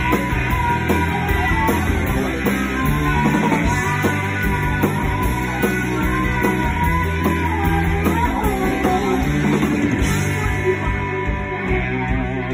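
Live rock band playing a loud song in a punk-pop, grunge-leaning style, with a steady drum beat under it and two women singing the lead together.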